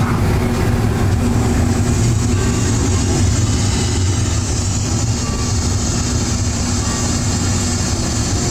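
Casey Jr. Circus Train, a miniature railroad train, running steadily along its track, heard from on board as a constant low rumble of the wheels and running gear with a steady hiss above it.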